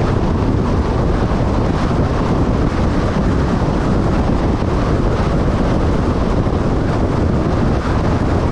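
Steady wind rushing over the microphone along with the road noise of a vehicle driving at highway speed.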